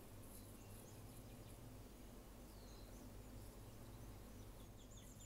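Near silence: a faint steady low hum, with one brief faint high chirp about two and a half seconds in.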